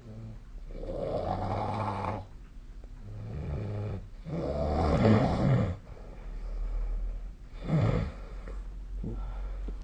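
Snoring in sleep: a run of snores, each a second or more long, with a low rattling rumble. The loudest comes about halfway through, and a shorter, sharp one follows near the end.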